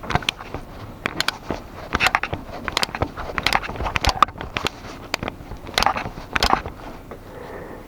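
Hand ratchet clicking in short bursts, stroke after stroke, as gearbox bolts are snugged down.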